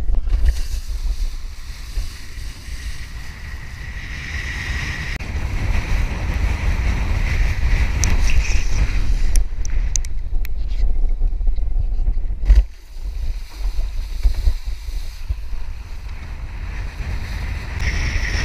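Wind buffeting an action camera's microphone, with the hiss and splash of a kiteboard skimming over water. Near the middle there is a sudden loud knock, after which the sound briefly drops.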